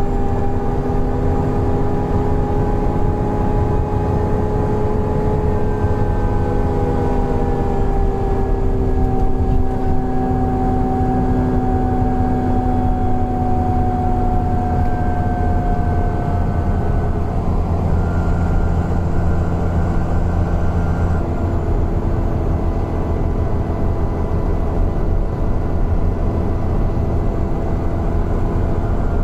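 Alexander Dennis Enviro 400 double-decker bus running: a steady low engine drone with several whining tones over it that drift slowly down in pitch, and a new higher tone that comes in about 18 seconds in and drops out a few seconds later.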